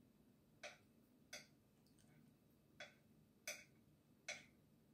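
A spoon clicking faintly against a plate five times at uneven intervals while it scoops a hollow into a mound of soft kali dough.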